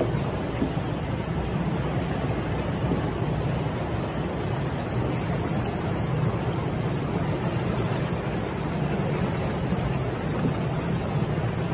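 Steady rush of fast, churning water flowing along a concrete wall.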